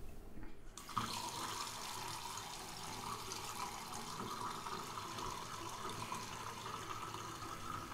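A bathroom tap turned on about a second in, water then running steadily into a sink.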